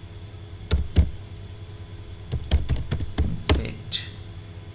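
Keystrokes on a computer keyboard typing a terminal command: two sharp key clicks about a second in, then a quick run of taps a little past the middle.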